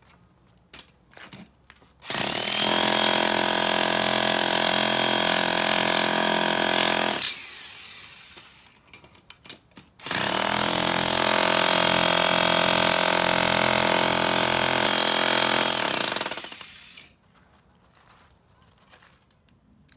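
Corded electric demolition hammer chiselling into a concrete deck. It runs in two long bursts, about five and then about seven seconds, with a short pause between in which the motor winds down; a few light knocks come before and after.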